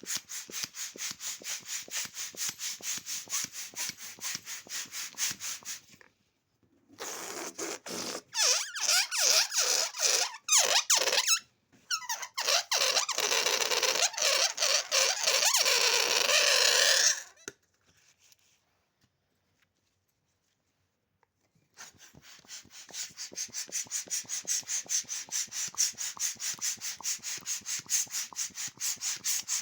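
Balloon pump inflating a balloon in quick, even strokes, about four or five a second. Partway through, the strokes give way to a louder, rushing, squeaky stretch lasting about ten seconds, then a short quiet, then the steady pumping strokes start again.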